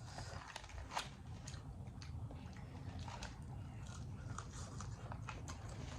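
A person chewing and biting food close to the microphone, with a few faint crunchy clicks.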